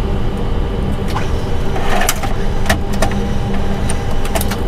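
Steady low rumble and hum on an Airbus A320 flight deck, with the APU running and its bleed air on as the engines are shut down at the stand. A few sharp clicks sound over it.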